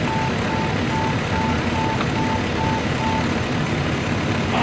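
A vehicle engine running steadily, with a string of about eight short, high electronic warning beeps, a little over two a second, that stop about three seconds in.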